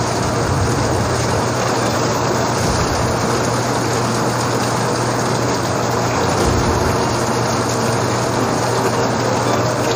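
Steady heavy rain: an even rushing hiss that does not let up, with a low steady hum underneath.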